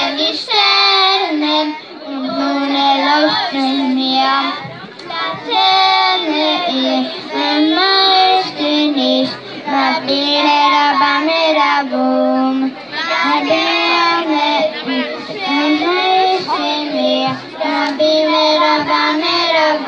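A group of children singing a song together, some into handheld microphones, in melodic phrases of held notes with short breaks for breath between them.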